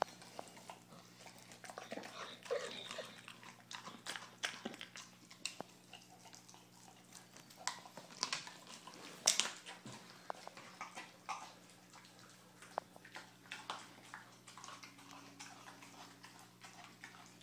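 American Staffordshire Terrier chewing a raw whole chicken: irregular wet crunches and sharp clicks of teeth on meat and bone, the loudest crunch about nine seconds in. A low steady hum runs underneath.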